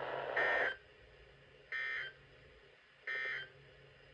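Emergency Alert System end-of-message (EOM) code: three short, identical bursts of buzzy digital data tones, about a second and a half apart, signalling that the alert has ended.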